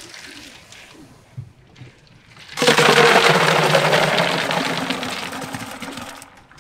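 Iced pineapple fruit tea poured from a large steel pot into a plastic drink dispenser: a loud rush of liquid with ice cubes and fruit chunks splashing in. It starts abruptly about two and a half seconds in and tapers off near the end as the pot empties.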